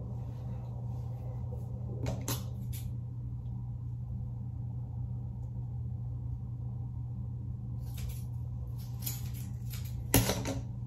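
Synthetic crochet hair rustling as strands are pulled apart, with a brief sharp snip or clack of scissors near the end, over a low steady hum.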